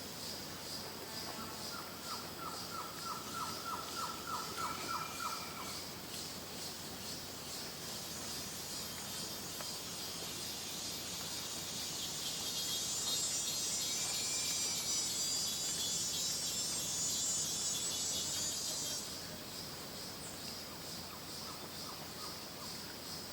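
Tropical rainforest ambience: a steady, pulsing chorus of insects, joined in the first few seconds by a bird's rapid trill of evenly repeated notes and, twice, a short rising-and-falling whistle. About halfway, a louder, higher insect buzz swells in and holds for several seconds before dropping away, leaving the pulsing chorus and a faint repeated bird note.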